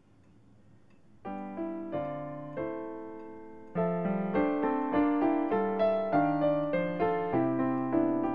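Solo piano music: a first chord about a second in, a few slow notes, then from about four seconds in a steadier run of notes, each ringing and fading.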